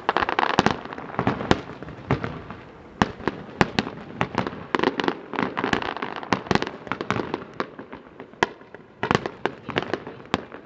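Aerial fireworks bursting in quick succession, a dense run of sharp bangs coming every fraction of a second with no let-up.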